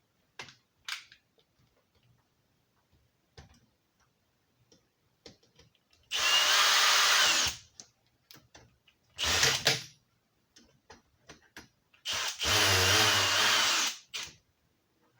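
Power drill driving screws in three runs, two longer ones about a second and a half each and a short burst between them, with faint handling clicks in the pauses.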